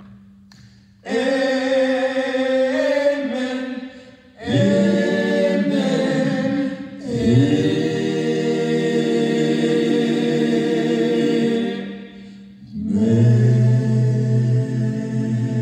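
Male vocal quartet singing a cappella in close harmony, in long held phrases with short breaks between them; a deep bass voice comes in strongly near the end.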